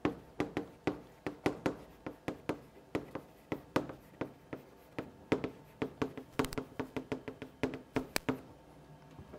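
Chalk tapping on a blackboard while words are written: a quick, irregular run of short taps that stops near the end.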